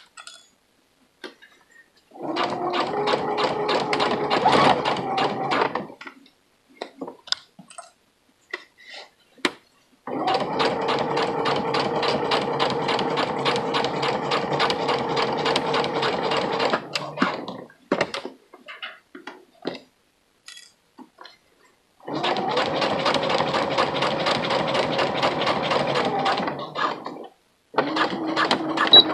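Electric sewing machine stitching through pant fabric in four runs of several seconds each: a steady motor tone under rapid, even needle strokes. Between the runs there are short pauses with small clicks as the fabric is handled.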